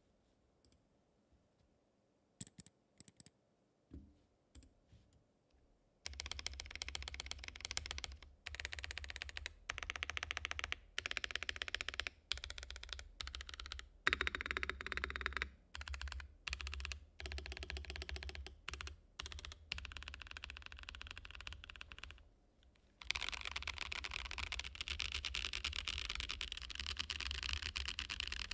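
Fast typing on a custom Ikki68 R2 mechanical keyboard with stock Boba U4T 'thocky' tactile switches, aluminium plate with silicone plate foam, and ABS keycaps. A few scattered clicks first, then steady rapid keystrokes from about six seconds in, with brief pauses and a break of about a second near the end before the typing resumes.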